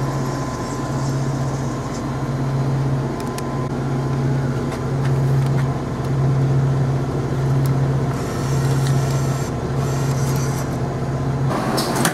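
A steady low machine hum that swells and dips about once a second, with a few faint clicks. Near the end it stops and a brief rustle begins.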